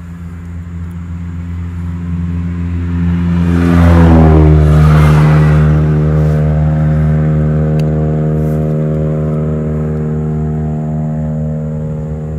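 A motor vehicle passing close by. Its engine note grows louder to a peak about four seconds in, drops in pitch as it goes past, then fades slowly, leaving a steady low engine hum.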